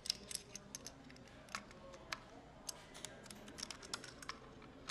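Light, scattered plastic clicks and taps of a handheld laser receiver and its mounting bracket being handled and fitted together.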